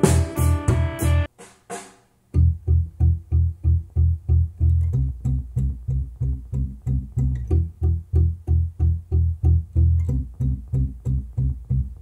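Song played back through bookshelf loudspeakers and picked up in the room: a guitar passage on the Sony SS-CS5 stops about a second in. After a short near-silent gap, the Buchardt S300 starts the same track with a bass-heavy run of plucked guitar and bass notes, about three a second.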